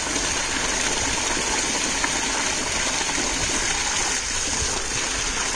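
Water gushing steadily from a pump's outlet pipe, pouring onto a child and splashing into a cement tank.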